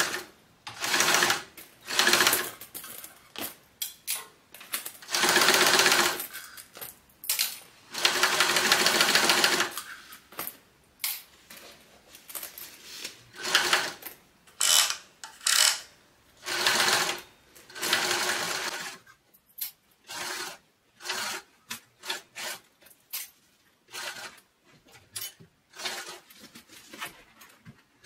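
Yamata sewing machine stitching a bag's layered vinyl exterior and lining together in short runs of one to two seconds, stopping and starting several times. In the last third the machine is silent and there are only scattered short clicks and knocks.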